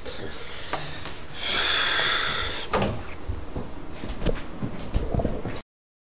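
A hiss lasting about a second, then scattered knocks and thumps. The sound cuts off abruptly to silence near the end.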